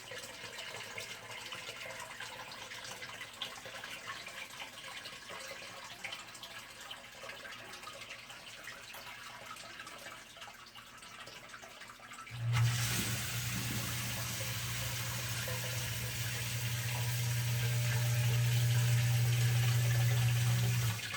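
Water trickling into a sump pit, then about 12 seconds in the sump pump switches on with a sudden steady motor hum and rushing water as it pumps the pit down, shutting off near the end. It is cycling about every 28 to 30 seconds from heavy groundwater inflow after snowmelt and rain.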